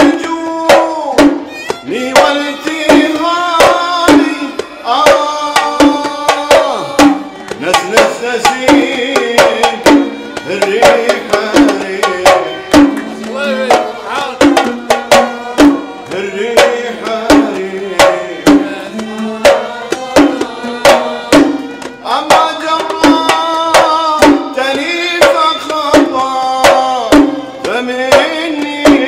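Instrumental passage of Gulf sawt music: oud and violin play the melody over a steady beat of mirwas hand drums.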